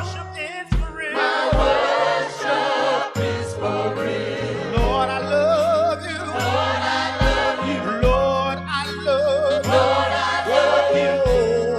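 Gospel choir singing with vibrato over instrumental accompaniment, with a steady low bass and regular low drum hits.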